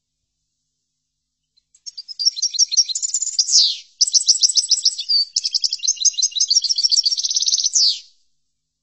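European goldfinch (chardonneret) singing one long high-pitched phrase of fast twittering trills and quick falling slurs, starting about two seconds in, breaking off briefly near the middle, and stopping sharply near the end.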